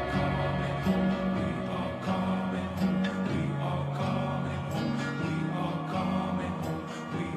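Background music: a slow song passage with plucked guitar over held low notes that change about once a second.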